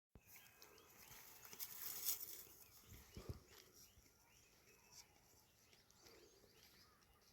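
Faint animal noises, with short calls and a few soft knocks.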